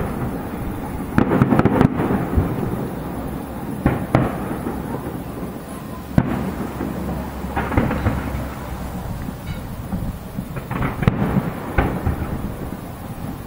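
Aerial fireworks display: shells bursting with sharp bangs every few seconds, with a continuous low rumble and crackle between the bursts.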